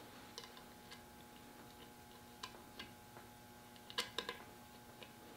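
Scattered light clicks of small metal gun parts being handled and fitted against a shotgun's wooden stock, with a quick cluster of sharper clicks about four seconds in, over a faint steady hum.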